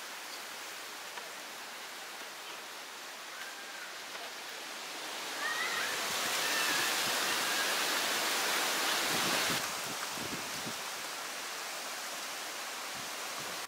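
Steady rushing hiss of outdoor background noise. It grows louder for about four seconds in the middle, then settles back.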